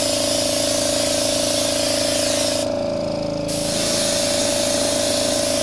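Airbrush spraying a coat onto a sneaker, a steady hiss of air and paint that stops briefly about three seconds in and then resumes. A steady hum from the air compressor runs underneath.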